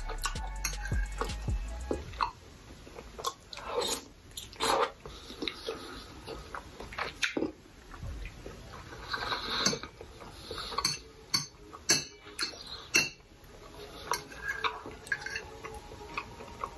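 Metal fork clinking and scraping against a ceramic bowl of noodles, in irregular short clicks, with wet eating and chewing sounds between them.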